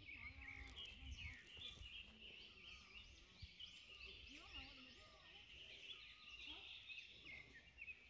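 Many birds chirping and calling from the forest canopy in a dense overlapping chorus of short high notes, with faint distant human voices underneath.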